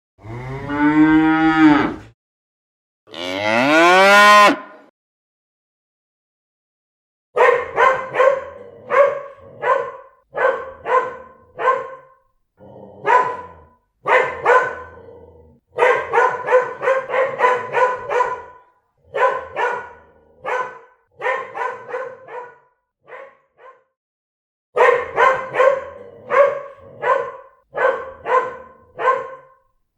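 A cow mooing twice, two long calls, the second climbing in pitch. After a pause of about two seconds, a dog barks over and over in quick runs with short breaks.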